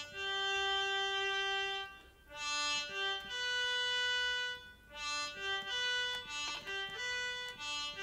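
Akai EWI5000 electronic wind instrument playing a slow melody of held, sampled notes, in phrases broken by short pauses about two and five seconds in.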